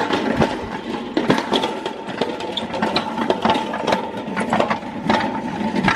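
A small motor hums steadily, with many irregular clicks and knocks over it.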